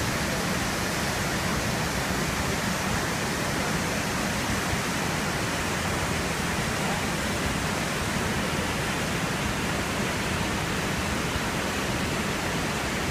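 Willamette Falls' whitewater pouring over the falls, a steady, unbroken rushing noise that holds an even level throughout.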